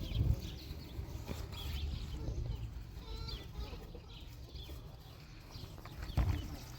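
Birds chirping in short, scattered calls over a low steady rumble.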